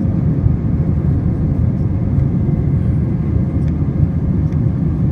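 Passenger airliner cabin noise: a steady low rumble of the jet engines and rushing air, heard inside the cabin, with a faint steady hum above it.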